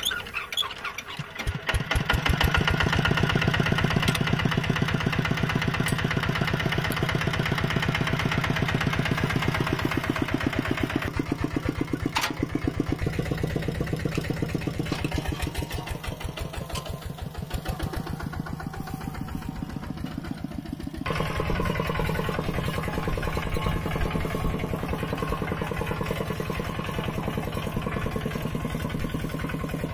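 Mini tractor engines running with an even, rapid chugging. The sound builds up over the first two seconds, and its tone changes suddenly twice, about 11 and 21 seconds in.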